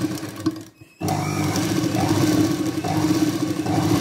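Domestic sewing machine driven by a belt-driven electric add-on motor, running and stitching fabric. It stops for a moment just under a second in, as the foot pedal is let off, then starts again at about a second and runs steadily.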